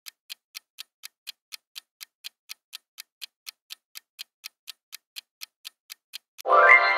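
Countdown-timer clock ticking sound effect, about four even ticks a second, then a loud ringing chime near the end that marks the time running out.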